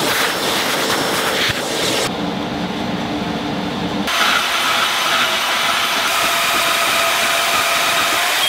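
A shop vacuum hose sucking up sawdust with a steady hiss. After a lower hum in the middle, a portable bandsaw runs from about four seconds in, cutting a steel bar, with a steady hiss and whine.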